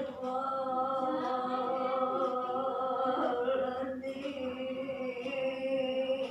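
One person's voice holding a single long, steady note for about seven seconds, its tone shifting slightly about four seconds in.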